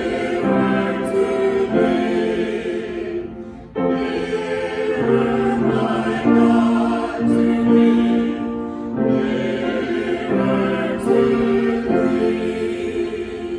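Slow worship music of sustained chords in long phrases, tapering off near the end.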